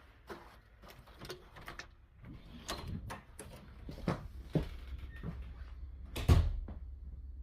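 A run of irregular knocks and clicks, the loudest about six seconds in, over a low steady hum that sets in a couple of seconds in.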